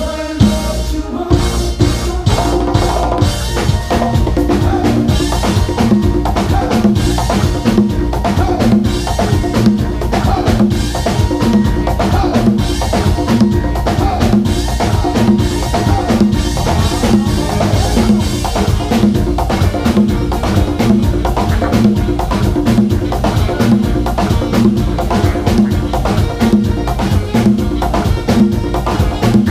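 LP congas played in a steady groove along with band music that has a repeating bass line and a drum beat.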